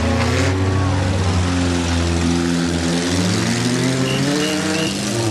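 Demolition derby car engine running and revving, its pitch rising and falling as the car circles the dirt track. Three short high beeps sound near the end.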